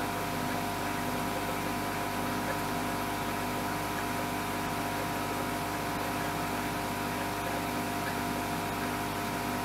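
A steady machine hum with several held tones over a constant hiss, unchanging throughout.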